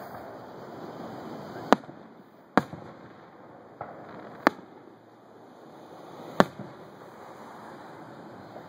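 Aerial fireworks shells bursting: four sharp bangs, the first two close together and the next two about two seconds apart, with a fainter pop in between, over a steady background hum.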